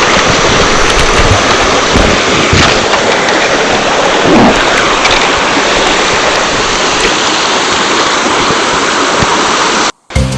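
Mountain stream water rushing and splashing over rocks, a loud steady roar. It cuts off abruptly near the end.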